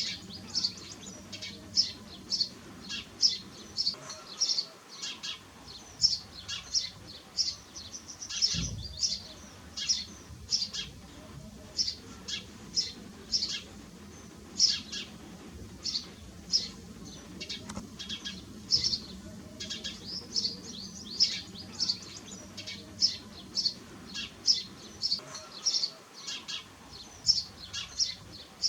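A flock of house sparrows chirping continuously: many short, overlapping chirps, several a second.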